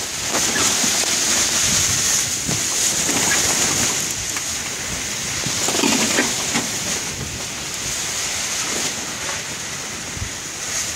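Water rushing and splashing along a sailing yacht's hull as it moves through a choppy sea, with wind.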